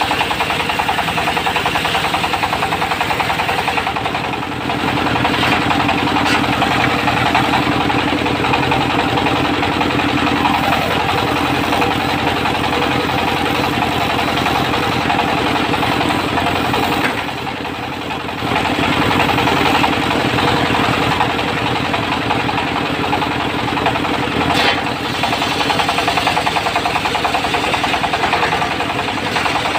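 Diesel engine of a portable circular-saw mill running hard as the disc blade saws teak into beams, a dense pulsing engine note under the whine and rasp of the cut. The level dips briefly about four seconds in, and for about a second past the middle.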